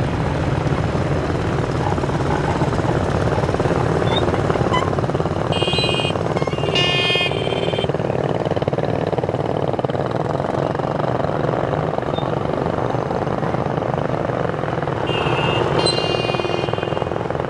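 Small motorbikes riding past one after another in a procession, their engines running in a steady blended buzz. Brief high-pitched tones sound twice, about six seconds in and again near the end.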